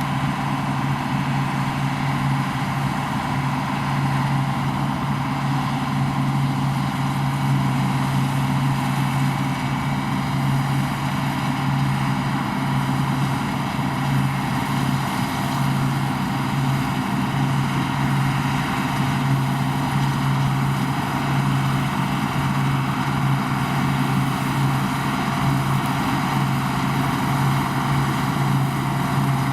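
Combine harvester running steadily in the field, a constant engine and machinery drone that holds the same pitch throughout.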